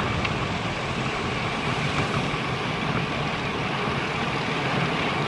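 Steady wind and road noise from a road bike ride in motion: wind rushing over the camera's microphone and tyres rolling on pavement.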